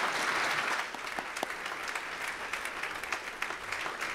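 A large seated audience applauding, fullest for about the first second, then a little thinner, with single claps standing out.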